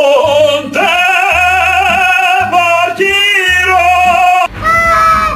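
Music: a sung melody with wavering, vibrato pitch over a pulsing bass line, which stops abruptly about four and a half seconds in. A short, steady-pitched, drawn-out call follows near the end.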